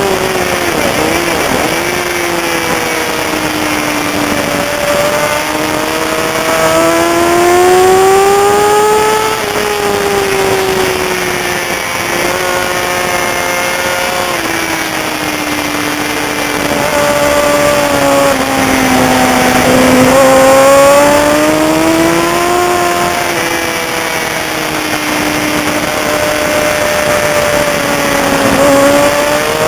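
Racing sport motorcycle engine running hard, its pitch climbing as it accelerates and falling away as it slows, several times over, over a steady rush of noise.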